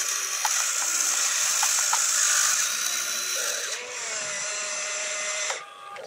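Electric motors and plastic gearboxes of a toy RC excavator whirring and grinding as it digs and lifts a bucket of dirt, with a few clicks of stones early on. A steady whine runs through the second half and cuts off suddenly near the end.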